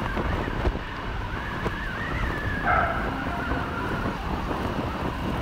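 Motorcycle riding along, its engine running steadily under wind rushing over the microphone.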